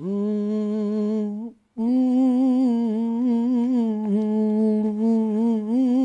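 A man's voice singing unaccompanied without words, the wordless opening of a traditional Tunisian folk song. It holds one long note, takes a short breath about a second and a half in, then goes on with a long held phrase that wavers in ornaments.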